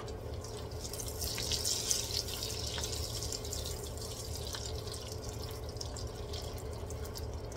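Butter and oil sizzling and crackling in a hot wok as they are stirred with a spatula, with a steady low hum underneath.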